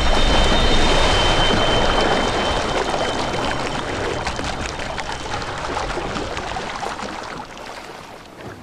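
Water splashing and pouring, a sound effect for a water-splash logo, fading out steadily over the last few seconds.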